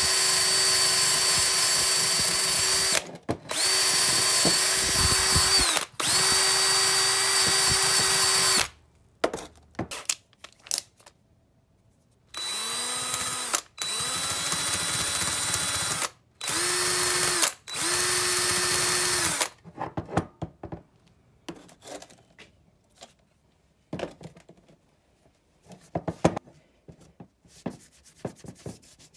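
Hand-held power drill running in bursts of a few seconds. Three long runs at a steady high speed come first, then four shorter runs at a lower speed, each winding up as it starts. Light handling clicks follow near the end.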